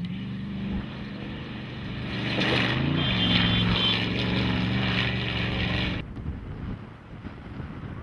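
Off-road race truck engine running hard as it comes by, growing louder from about two seconds in, with a shift in pitch, and cutting off abruptly about six seconds in.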